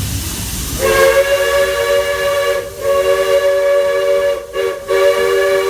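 Steam locomotive Roy O. Disney's chime whistle, several tones at once, blowing two long blasts, a short one and another long one. This long-long-short-long pattern is the grade-crossing signal. The train's running noise comes before the first blast.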